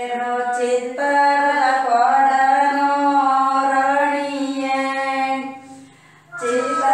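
Background music: a woman singing long, held notes with slow bends in pitch. The singing breaks off briefly near the end and then comes back in.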